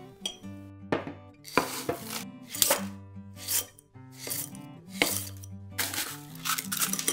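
Crushed ice crunching in a series of scoops as it is packed into a glass and a metal ice-cream scoop digs into it. Background music plays underneath.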